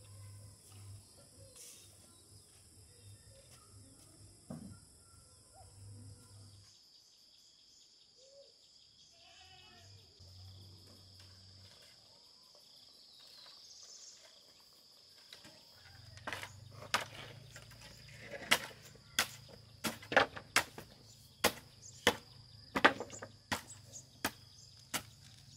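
Insects buzzing steadily. About two-thirds of the way in, a hand tool starts striking repeatedly: a run of sharp, uneven knocks, roughly one or two a second.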